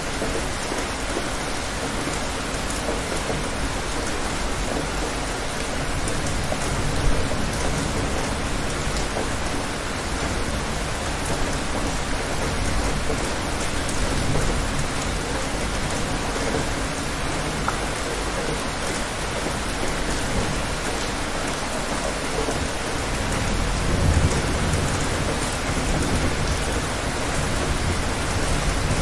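Steady rain, with low rumbles of thunder swelling about seven seconds in and again around twenty-four seconds in.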